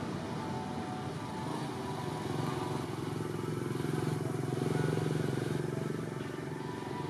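A motor vehicle's engine running steadily in the background, its low hum growing louder about four to five seconds in and then easing off.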